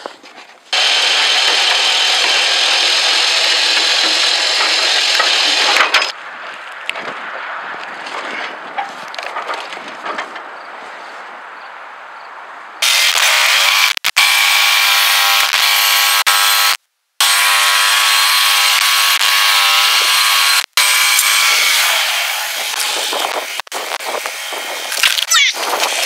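Norwood HD36 portable bandsaw sawmill running, its engine-driven band blade sawing lengthwise through a pine log. The sawing is loud for the first six seconds and again from about thirteen seconds on, with a quieter stretch between and a few sudden breaks.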